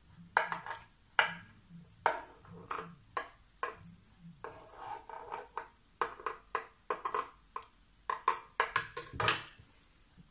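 Large metal tailoring scissors cutting fabric, a run of quick, irregular snips, each with a short crisp rasp, as the edge of a stitched piece is trimmed. The snipping stops about half a second before the end.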